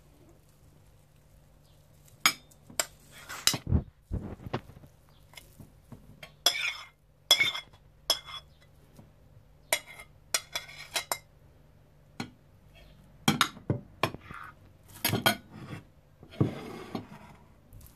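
Metal spoon scraping and clinking against white china bowls and plates as minced meat is scooped out, in irregular sharp clinks and short scrapes.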